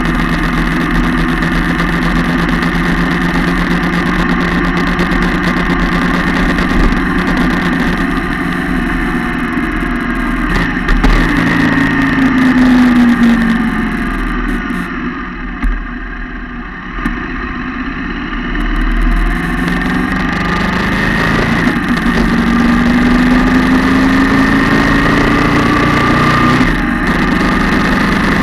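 Yamaha MT-07's 689 cc parallel-twin engine running through an aftermarket twin-can exhaust, heard close up from the engine side. Its note falls and goes quieter about halfway through as the bike slows, then climbs again as it accelerates.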